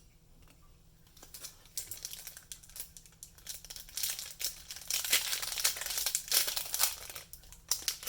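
Foil booster-pack wrapper crinkling and tearing as it is handled and opened. It starts about a second in and is loudest in the second half.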